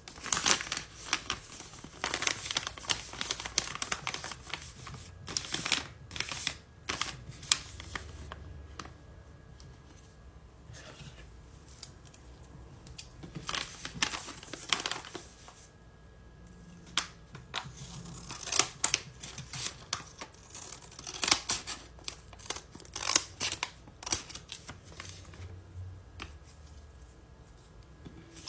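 Paper and tape crinkling and rustling in bursts of close, crackly handling noise, as of paper squishies being squeezed and handled.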